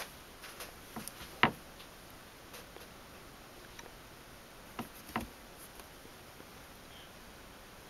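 A few short, sharp clicks against a quiet background: a pair about a second in, the loudest about a second and a half in, and two more about five seconds in.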